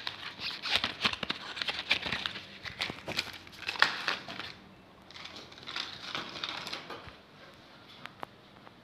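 Rustling and crinkling from a bag being handled close to the microphone, in dense bursts with small clicks, then dying down to a few isolated clicks near the end.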